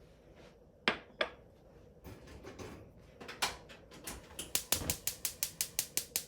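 Dishes and utensils clinking: two sharp taps about a second in, a few scattered knocks, then a quick, even run of clinks, about six a second, in the last two seconds.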